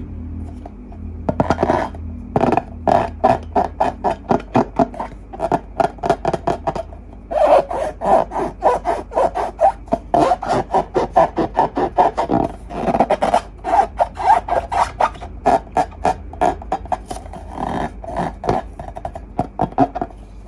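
Slime being worked by hand, a long quick run of short squishing, rubbing strokes, a few each second, that starts about a second in with a brief pause near seven seconds.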